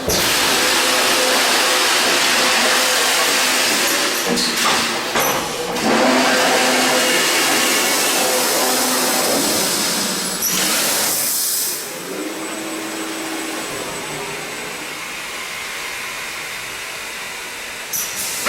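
Schlatter MG210 mesh welding machine running: steady industrial machine noise with a low hum, broken by short bursts of compressed-air hiss about ten seconds in and again at the very end. The noise eases somewhat after the first hiss.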